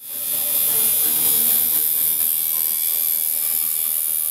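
Electric tattoo machine buzzing steadily while it works, fading in over the first half second.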